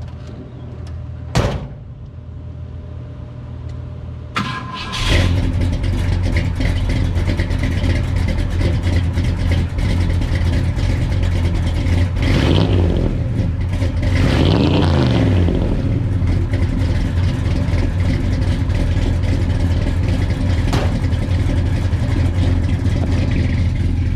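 A truck door slams shut. About three seconds later the 1969 Ford F100's FE big-block V8 cranks briefly, fires and settles into a loud, lumpy idle, and it is revved up twice around the middle. The uneven idle is the cam chop of its solid-lifter, flat-tappet camshaft.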